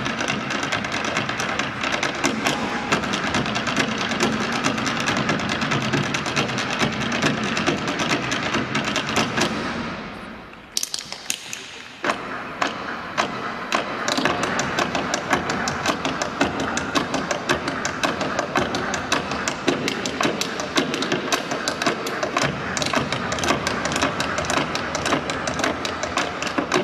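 Massed Irish dance hard shoes striking a stage: a line of dancers tapping in a fast, dense clatter. It fades about ten seconds in, then after a short gap starts again with a few scattered taps and builds back to a steady rapid clatter.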